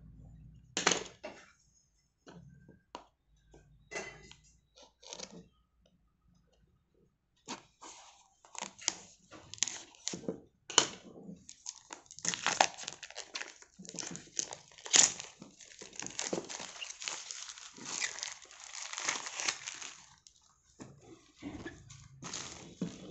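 Clear plastic shrink-wrap being torn and peeled off a smartphone's cardboard box. A few scattered crinkles and taps come first, then from about seven seconds in a long spell of dense crinkling and tearing that thins out near the end.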